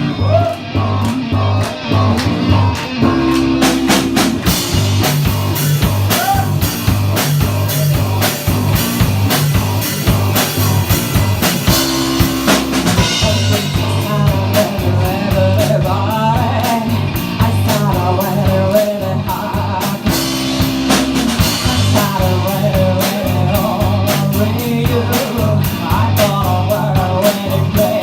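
Rock band playing a blues-rock song, with drum kit, bass guitar and guitar keeping a steady groove. From about halfway a wavering lead melody with vibrato comes in over the band.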